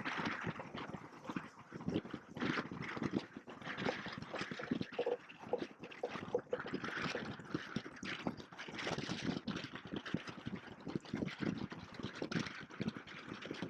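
Water splashing and lapping irregularly against the hulls of a Hobie Cat 16 catamaran, a choppy, uneven wash of small splashes.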